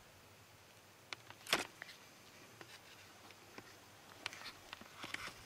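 Faint scattered clicks and brief rustles over a quiet background, the loudest a short rustle about a second and a half in and a few more clicks near the end.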